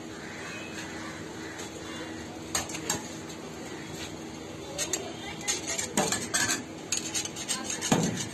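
Metal kitchen utensils clinking and scraping at a steel shawarma counter: scattered clinks at first, then a quicker clatter from about halfway, as a knife and metal spatula work at the chicken on the vertical rotisserie spit, with one loud knock near the end. A steady low hum runs underneath.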